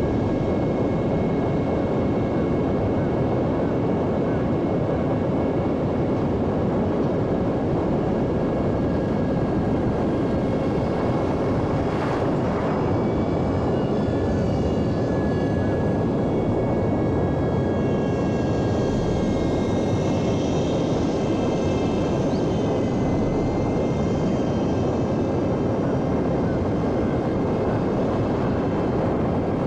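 Homemade electric RC airplane in flight: the motor and propeller whine steadily under a dense, even rush of noise, the whine shifting in pitch a little around the middle.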